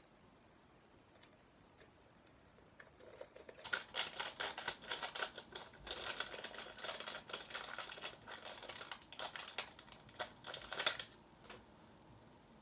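Paper wrapping rustling and crinkling as it is unfolded by hand, a quick run of crackles from about three seconds in until about eleven seconds in.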